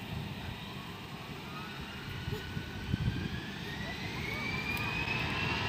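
An Airbus A320's twin jet engines spooling up to take-off thrust: a whine rises steadily in pitch for about five seconds and then holds, over a low engine rumble.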